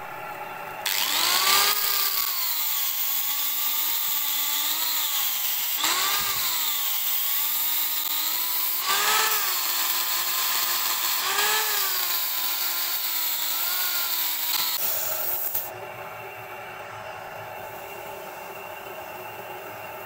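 Electric angle grinder with a foam-backed sanding disc sanding a wooden dish spinning on a wood lathe, its whine dipping and rising several times as it bears on the wood. The grinder stops about three-quarters through, leaving the steadier, quieter hum of the lathe motor.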